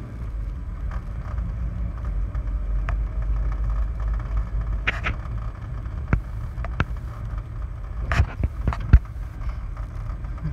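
Low steady rumble of a car moving slowly along a narrow lane, with several short sharp knocks in the second half.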